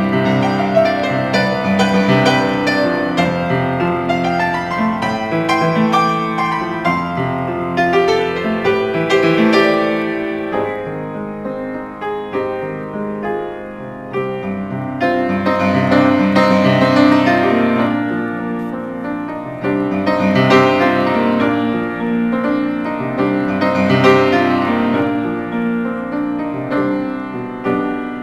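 Solo acoustic piano played with both hands: sustained, overlapping chords and a melody. It grows softer about a third of the way in, then swells louder again twice.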